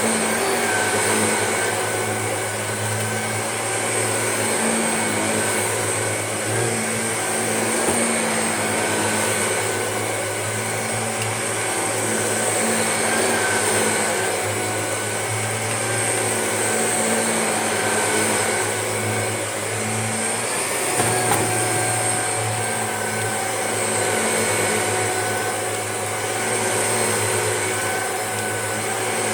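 Hoover Junior upright vacuum cleaner running continuously, its motor and brush bar drawing over a faux fur rug, the level rising and falling gently as it is pushed back and forth.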